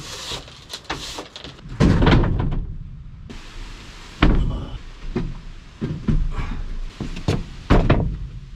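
Wooden pallets knocking and thudding heavily as they are shifted and set down on the plywood floor of a van's cargo area, with several loud thumps and smaller knocks between them.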